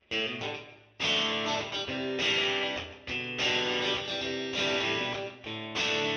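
Intro theme music led by guitar: a single strummed chord rings and fades, then about a second in a steady pattern of strummed chords begins, repeating in phrases with short dips between them.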